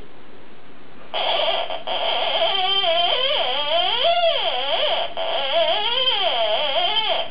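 Theremin tone swooping and wavering up and down in pitch. It starts about a second in, breaks off briefly about five seconds in, then carries on until just before the end.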